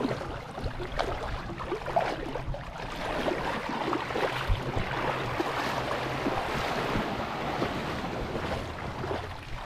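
Shallow sea water splashing and swishing around wading feet and legs, with small waves lapping at the shore and wind buffeting the microphone.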